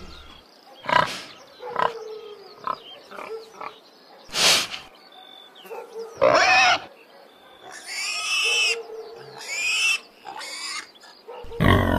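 Pigs grunting and snorting in a string of short calls, with several longer, higher squeals from about six seconds in.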